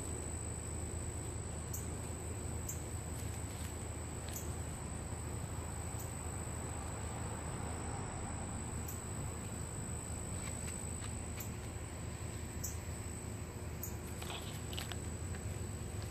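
Insects trilling: one steady, unbroken high-pitched note over a low background rumble, with a few scattered faint clicks.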